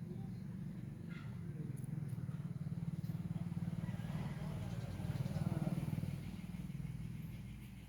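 A motor vehicle's engine running, growing louder toward the middle and fading near the end, as if passing by.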